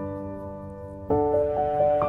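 Soft background piano music: a held chord dies away, and a new chord strikes about a second in, followed by sustained melody notes.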